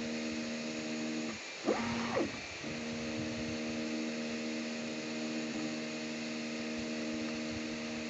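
Anet A6 3D printer's stepper motors whining with a steady pitched hum as the hotend prints PLA, over a steady hiss. About a second and a half in, the hum breaks off for two quick rising and falling sweeps in pitch as the head makes fast moves, then the steady hum resumes.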